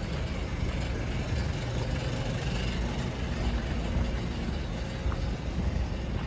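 City street traffic: a steady low drone of vehicle engines from cars, buses and trucks on the road alongside.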